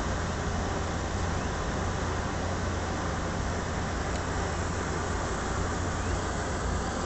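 Steady background noise with a low rumble throughout and no distinct events.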